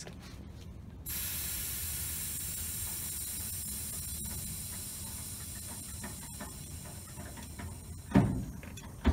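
Truck air ride suspension letting air through its valves: a steady hiss that starts suddenly about a second in and slowly fades over several seconds.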